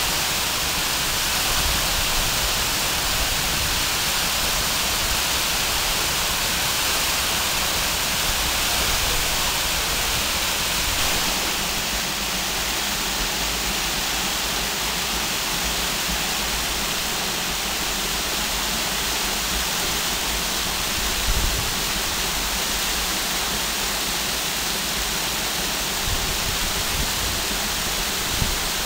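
Waterfall: a steady, even rush of falling water, with a few brief bumps in the second half.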